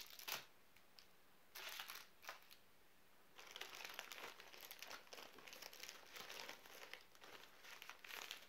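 Faint crinkling of plastic MRE packaging being handled: a few short rustles in the first few seconds, then steadier crinkling from about three seconds in.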